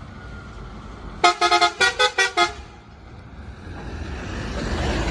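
A tourist bus's multi-tone air horn sounds a rapid string of about eight short toots at shifting pitches. Then the rush of the bus coming closer grows louder toward the end.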